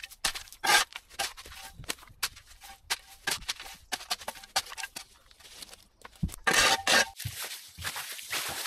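Long-handled garden hoe chopping and scraping through soil and dry leaf litter in quick, irregular strokes, with a longer, louder scrape and rustle about six and a half seconds in.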